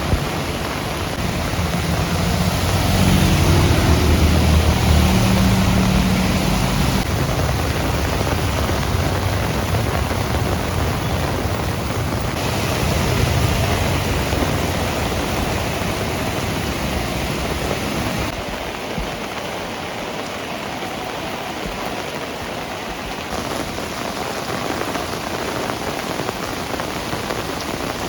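Heavy rain falling steadily. A low rumble sits under it for the first part and falls away about two-thirds of the way through.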